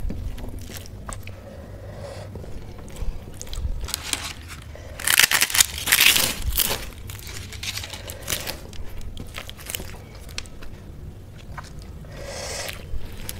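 Crisp papad being crushed by hand over a plate of rice, a loud dense crackling crunch about five seconds in that lasts a second or so. Around it, the soft wet squishing and small clicks of fingers mixing rice and curry on a steel plate.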